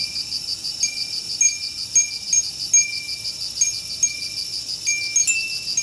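Two glass fūrin (Japanese wind bells) tinkling as their clappers strike in the breeze, light ringing notes about twice a second. A second, slightly higher-pitched bell joins near the end. Under them runs a steady, rapidly pulsing high insect trill.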